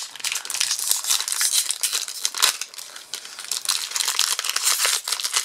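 A Magic: The Gathering booster pack's foil wrapper crinkling and tearing as it is pulled open by hand: a dense run of crackles, with one sharp crackle about two and a half seconds in.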